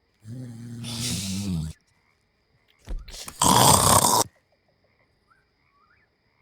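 Snoring: a rattling, pitched snore lasting about a second and a half, then after a pause a louder, harsher snorting breath of just under a second and a half.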